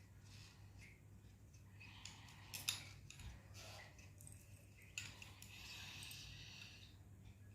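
Faint handling sounds of small metal parts: light scraping and rustling with a few sharp clicks, the clearest about two and a half and five seconds in, over a steady low hum.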